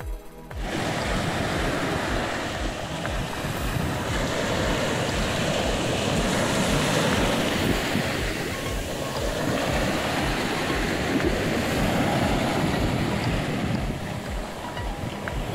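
Sea waves breaking and washing up the beach, a loud steady rush that swells and eases every few seconds. It begins suddenly about half a second in, and a low, even bass beat of background music continues underneath.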